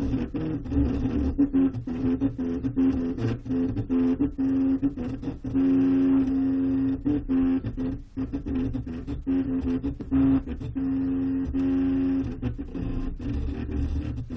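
Stepper motors of a homemade 3D printer driving the print head while it prints a small brick: a steady whine that holds one pitch for a second or so, then jumps to another, with brief breaks between moves.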